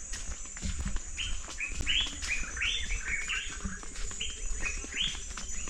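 A bird calling in a quick run of short chirps, about a dozen over four seconds, with a steady high-pitched hum underneath.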